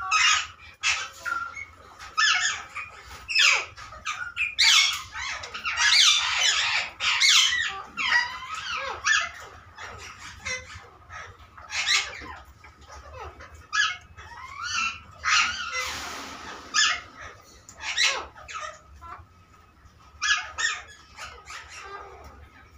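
Flock of aviary parrots, rose-ringed parakeets among them, screeching and squawking in harsh, overlapping calls. The calls are busiest in the first half and thin out near the end.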